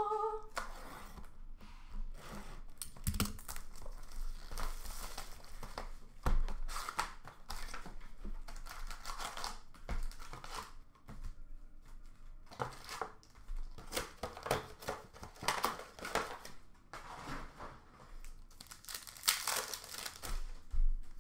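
Foil-wrapped hockey card packs and their cardboard box being handled and opened by hand: wrappers crinkling and tearing, with irregular rustles and light taps.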